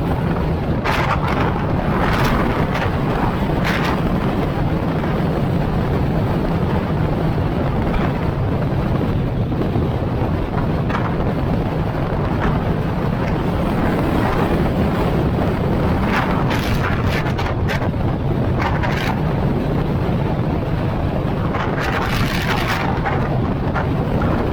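Steady low rumble of a vehicle driving along the road, with wind buffeting the microphone; several brief hissing swells come and go, the longest about three-quarters of the way through.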